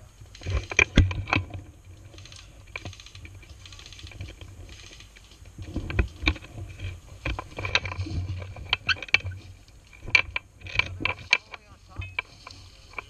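Footsteps crunching through dry leaf litter and brushing past palmetto fronds, an irregular run of crackles and sharp clicks. A gun-mounted camera picks up low knocks and rumble from being handled and carried.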